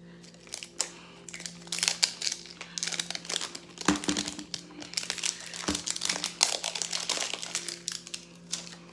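Plastic packaging of a Mini Brands capsule crinkling as it is handled and unwrapped, with two short knocks near the middle.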